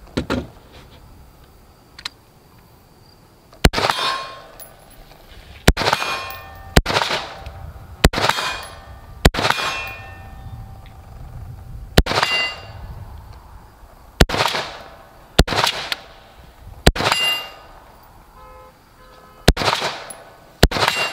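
Slow, deliberate fire from a Sig MCX Spear LT 5.56 rifle: about a dozen single shots one to three seconds apart, each followed by a ringing metallic clang that dies away.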